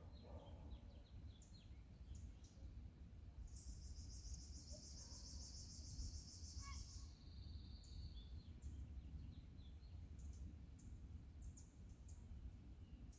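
Quiet outdoor ambience: birds chirping sporadically over a steady low rumble, with a high, even trill for about four seconds in the middle.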